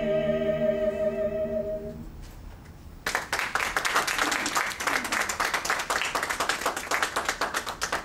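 A small a cappella vocal ensemble holds the final chord of a piece, releasing it about two seconds in and letting it ring off briefly; about a second later a small audience starts applauding and claps steadily.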